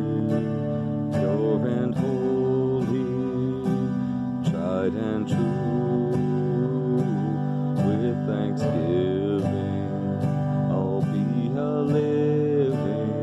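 Acoustic guitar strummed in a steady rhythm, with a man singing over it in long held notes.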